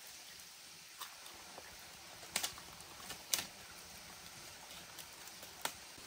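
Leaves being plucked and snapped off a leafy branch by hand: a few sharp, crisp snaps, about a second in, a quick pair near two and a half seconds, one past three seconds and one near the end, over the faint steady hiss of a stream.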